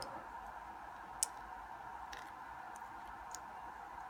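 A few faint, sharp metallic clicks, the loudest about a second in, as a thin metal shim is worked into the back of a lock core, over a steady faint hiss.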